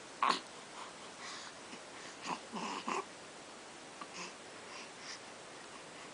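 A one-month-old baby's short grunts and breathy little vocal sounds, a few brief ones spread apart: the loudest just after the start, a cluster about two and a half to three seconds in, and fainter ones after four seconds.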